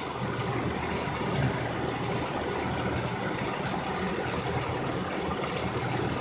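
Steady hum of a running air conditioner unit, an even whir with a low drone beneath.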